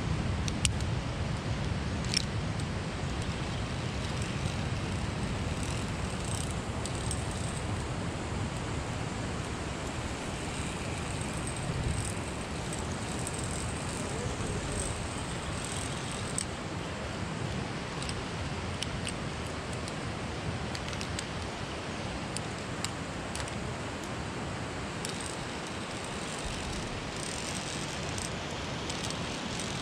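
Wind buffeting the microphone in a steady low rumble, with occasional short sharp clicks.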